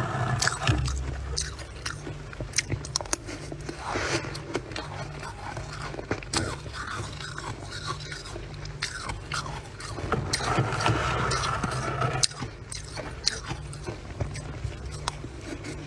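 Freezer frost being bitten and chewed: dense, squeaky crunching with many sharp crackles and a longer squeak about ten seconds in, over a steady low hum.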